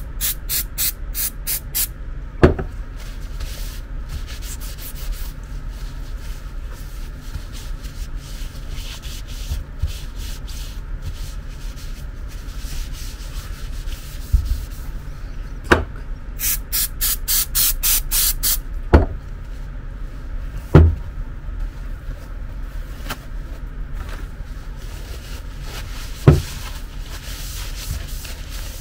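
Paper towel rubbing and wiping the aluminium tube and plastic motor housing of a bed's linear actuator, cleaning it down. Short rapid spritzes from an aerosol spray can at the start, another run of quick hissing strokes around the middle, and a few sharp knocks as the actuator is handled on the bench.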